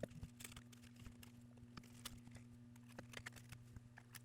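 Faint, scattered small clicks and taps from hands and tools handling the phone's parts during disassembly, over a steady low electrical hum.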